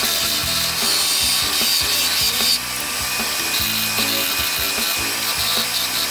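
A high-speed-steel lathe tool cutting a spinning wooden pen blank on a wood lathe: a dense scraping noise with many rapid knocks as the tool meets the blank's rough, unrounded edges.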